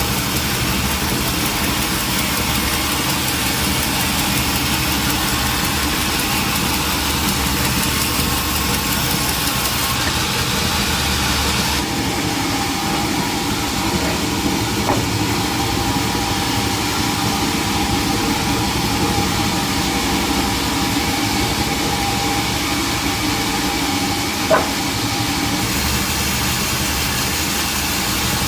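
Sawmill machinery running steadily, like an engine at idle, with a short sharp knock near the end.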